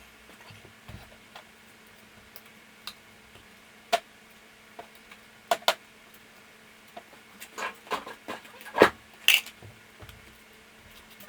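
Scattered metal clinks and knocks of hand tools and small parts being handled during a mower teardown, busiest and loudest about eight to nine seconds in, over a faint steady hum.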